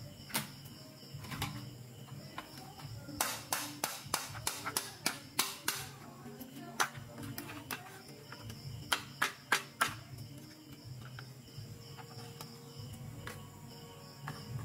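Small hard plastic toy pieces clicking and tapping against each other: a quick run of sharp clicks, several a second for about three seconds, then a shorter run of four or five clicks a few seconds later.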